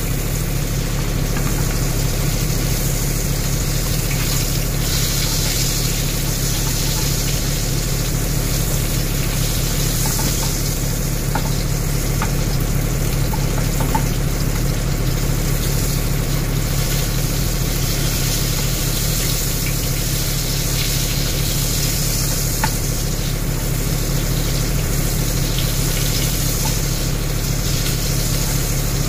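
Beef tenderloin steak sizzling as it grills, with a few brief pops over a steady low hum.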